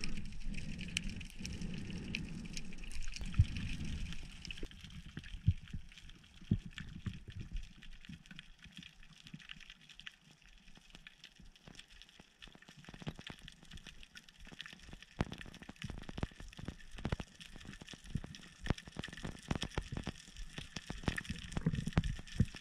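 Underwater ambience recorded below the surface: a continual crackle of short sharp clicks, which grows denser in the second half. Low bumps and rumbles from the diver's movement sound in the first few seconds.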